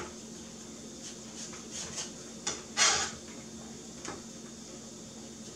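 Knife cutting watermelon on a cutting board: a few scattered knocks and scrapes, the loudest a short scrape nearly three seconds in.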